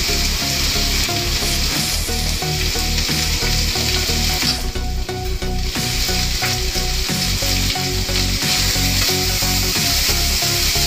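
Chopped onion, carrot and potato sizzling in hot oil in a nonstick kadhai, stirred with a wooden spatula that scrapes and knocks against the pan. The sizzle dips briefly about halfway, then picks up again.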